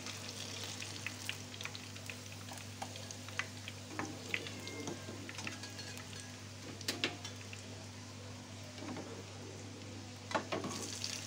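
Hot oil sizzling and crackling in a small frying pan of tahu bacem (spiced tofu), with a few sharp clicks of a metal slotted spatula against the pan as the fried pieces are lifted out, mostly about seven seconds in and near the end.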